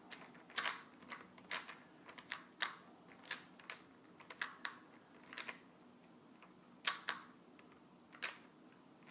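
Irregular sharp clicks and taps of a small screwdriver and plastic laptop parts being handled as screws go back into the laptop screen's mounts, about two to three a second, stopping near the end.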